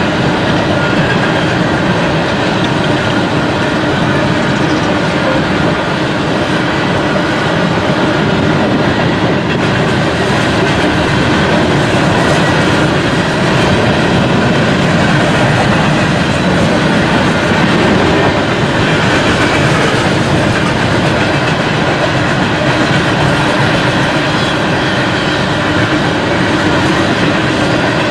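Freight train's open-top coal hopper cars rolling past at close range: a steady, loud rumble of steel wheels on the rails with clickety-clack over the rail joints.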